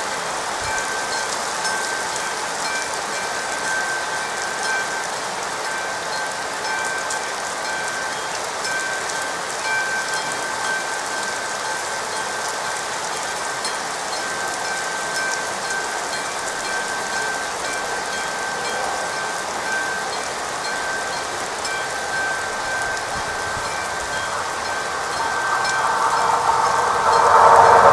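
Classic level-crossing warning bell ringing steadily over the hiss of rain. A train's noise swells in the last few seconds as it approaches the crossing.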